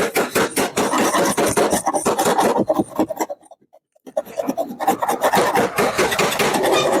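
Sandpaper rubbed by hand over a car body panel in rapid back-and-forth scraping strokes, pausing for about a second midway before resuming, as the body is sanded level for primer.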